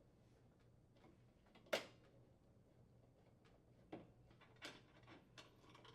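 A few faint clicks and taps as tools and metal range parts are handled during reassembly. The sharpest comes just under two seconds in, and smaller ones follow near the end.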